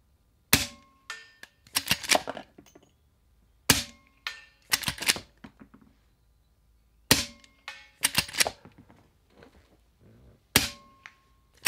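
Four suppressed shots from a Henry X lever-action rifle firing .38 Special rounds, about three and a half seconds apart, each followed by a quick run of metallic clacks as the lever is worked to chamber the next round. The shots are very quiet for gunfire, with no bullet crack downrange: the .38 Specials must be subsonic.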